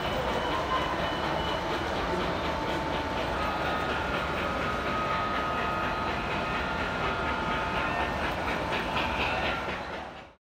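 O scale two-rail model steam train running on the layout track: a steady rolling rumble with rapid clicking of the wheels over the rail joints, fading out near the end.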